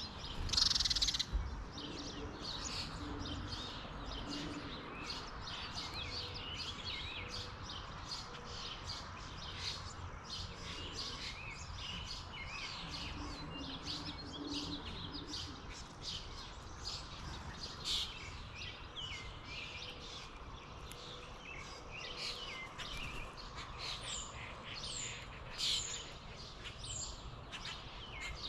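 Many small wild birds chirping at once, a dense stream of short chirps and tweets over a steady low background rumble, with a brief louder rush of noise about a second in.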